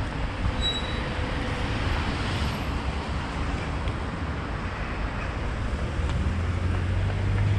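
Motorcycle on the move: a steady low engine hum under wind and road noise, the hum rising a little near the end.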